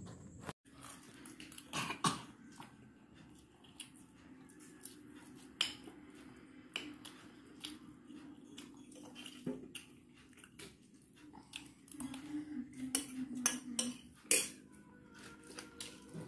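Spoons clinking and scraping against bowls as someone eats, a scattering of separate clicks.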